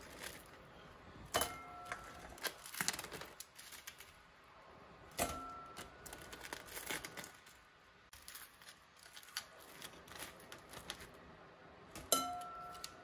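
Kitchen tongs clicking and tapping against a wire-mesh air fryer basket as crispy chicken wings are picked out one at a time. The sharp clicks are irregular, and a few of them ring briefly with a metallic tone.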